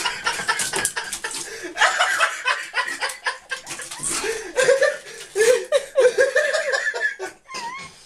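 People laughing in repeated bursts, with a short wavering high-pitched call near the end.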